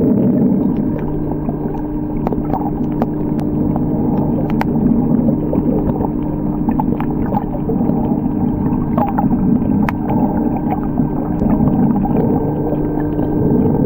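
Underwater ambience over a coral reef: a steady low drone with two constant hums running through it, and scattered sharp clicks.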